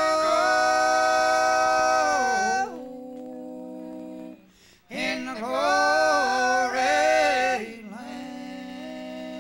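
Male bluegrass gospel vocal group singing in close harmony, holding long drawn-out notes. About two and a half seconds in, the harmony falls away to a softer single held low note. The voices come back in at about five seconds and fall back to the held low note near the end.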